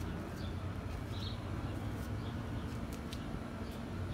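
Outdoor ambience: short, high bird chirps every second or so over a steady low rumble, with a few faint clicks.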